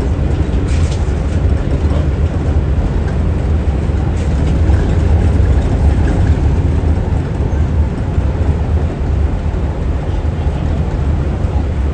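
Walt Disney World monorail running at speed, heard from inside the cabin: a steady, loud low rumble of running gear and air noise.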